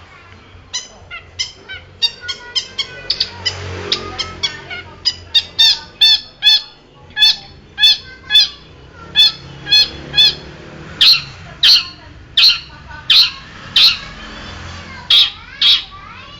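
Long-tailed shrike (cendet) singing a long string of short, sharp, repeated notes. The notes come in quick clusters at first, then grow louder from about five seconds in and settle into a steady beat of roughly one and a half notes a second.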